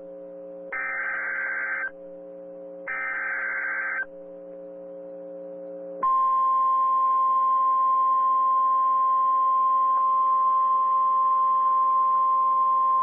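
Emergency Alert System tones: the last two of the three SAME header data bursts, each a harsh digital warble about a second long, then a short pause over a low hum. About six seconds in, the single steady National Weather Service warning tone starts and holds.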